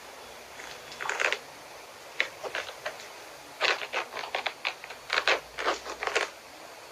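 Irregular scratchy rustling and clicks of kittens' claws catching on sweatpants fabric as they climb and paw, in short clusters with a dense run in the second half.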